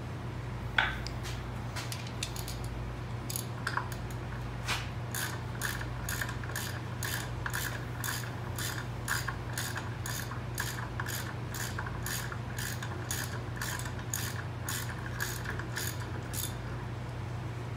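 Hand ratchet clicking at an even pace of about two clicks a second as it backs out an 18 mm caliper mounting-bracket bolt on a rear disc brake. A single sharp metal knock comes just under a second in, and a steady low hum runs underneath.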